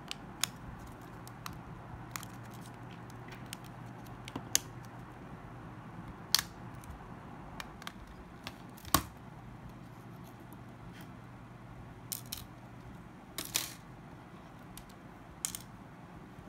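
Irregular small clicks and taps of tools and parts on a smartphone being taken apart, with a short scrape about two thirds of the way in, over a faint steady hum.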